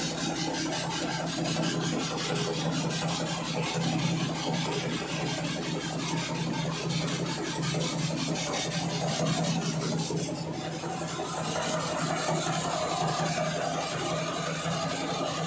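Multi-crop cleaner-grader running: its motor and shaking sieves give a steady drone, over the continuous hiss and rattle of soybeans sliding down the screens and pouring into a plastic tub.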